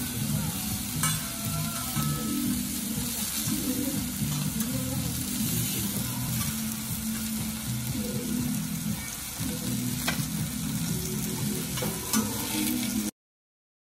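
Pieces of Ozaki wagyu sirloin sizzling steadily on a steel teppanyaki griddle, with a few sharp clicks of the chef's metal knife and fork against the hot plate. The sound cuts off abruptly near the end.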